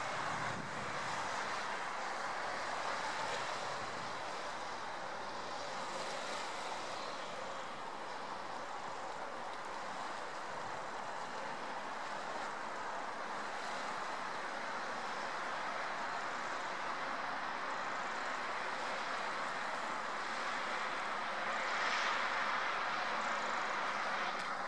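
Small waves washing and lapping on a sandy shore, a steady hiss that swells briefly near the end.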